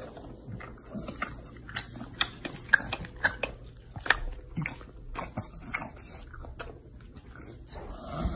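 English bulldog chewing a mouthful of crunchy cereal: irregular sharp crunches and mouth clicks, several a second.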